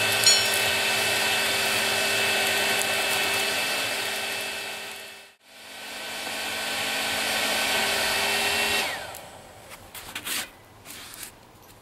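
Hair dryer used as a forge blower, running steadily with a whirring hum. It drops out briefly around the middle and then winds down and stops about three-quarters of the way through, after which there are light metallic clinks and knocks.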